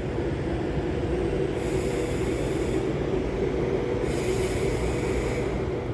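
Train standing at a station platform, its engines or on-board equipment giving a steady, even drone with a faint hiss coming and going.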